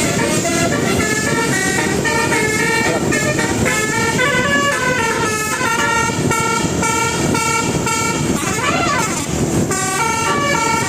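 Multi-trumpet 'telolet' bus horn playing a tune: a run of held musical notes stepping from pitch to pitch, with a brief swooping glide near the end.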